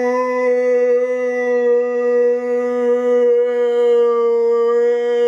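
A man's long, drawn-out "Nooo" cry, held at one steady pitch.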